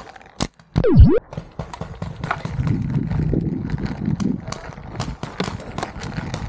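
Irregular clopping knocks and rattling from a paintball player moving across the field with a body-worn camera and a marker in hand. A loud, brief swooping sound, falling then rising in pitch, comes about a second in.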